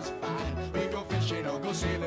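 Background music with a steady beat: pitched instrument notes over a bass line that pulses about twice a second.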